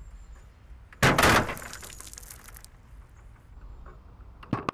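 A sudden loud bang with a noisy, splashy tail about a second in, as the sealed glass tube of caesium bursts underwater and the caesium reacts violently with the water in the plastic tank. A sharp knock follows near the end.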